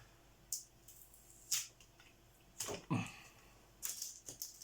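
Sticky tape being peeled and pulled off plastic parts: several short rasping strips at irregular intervals.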